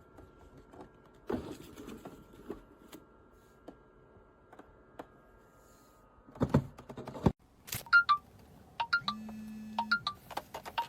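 Scattered light knocks and clicks, with a louder clatter of thuds about six seconds in. After a sudden cut, a short electronic tune of repeated bleeping notes over a low hum starts.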